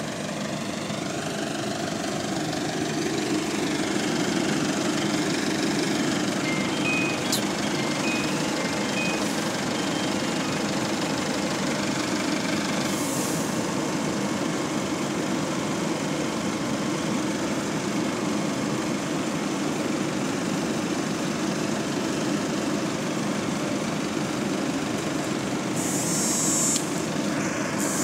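Hydraulically driven engine cooling fan of an Alexander Dennis Enviro200 bus running with a low-pitched drone over the idling engine, building up over the first few seconds and then holding steady. Short bursts of hiss near the end.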